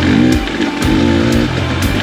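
Rock music with guitar over a steady beat of about two strokes a second.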